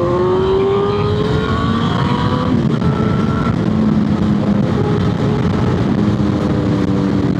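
Motorcycle engine pulling away, its pitch rising for about two and a half seconds before dropping at a gear change, then running steadier under heavy wind rush on the helmet-mounted microphone.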